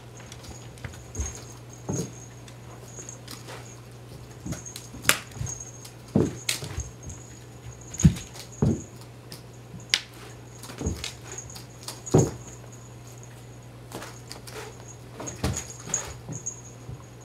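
Cats leaping at a feather wand toy and landing on carpet: irregular soft thuds and paw patter, the heaviest landings about eight and twelve seconds in.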